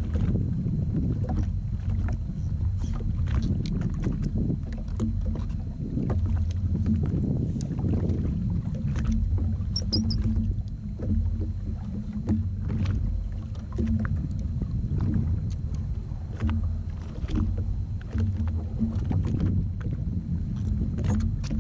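Steady low rumble on a jet ski drifting at sea, with many small knocks and clicks scattered through it.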